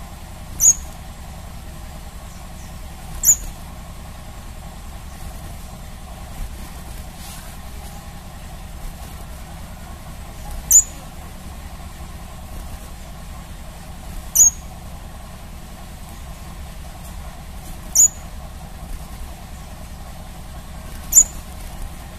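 Crimson sunbird giving single short, sharp, high-pitched calls, six in all, a few seconds apart, over a steady low background hum.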